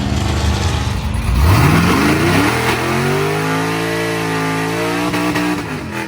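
LS-swapped 5.3-litre V8 with a BTR LS1 Stage 3 cam idling, then revved up about a second and a half in. It is held at high revs for about three seconds and let back down near the end.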